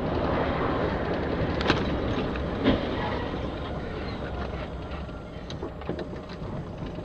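Steady road and engine noise of a vehicle driving on a wet road, heard through a dashcam, with two sharp bangs about a second apart within the first three seconds.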